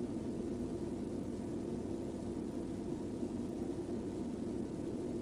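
Steady low rumble with a hiss from a stopped police cruiser's idling engine, heard through the dash camera, with no distinct events.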